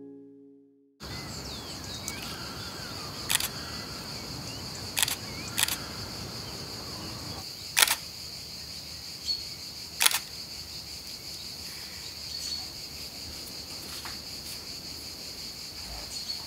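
Fujifilm X-E3 camera's shutter clicking five times, one to two seconds apart, over a steady high chirring of insects. The tail of a piece of music fades out in the first second.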